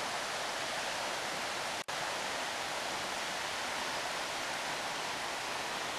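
Shallow river running over rocks: a steady rushing of water that drops out for an instant about two seconds in.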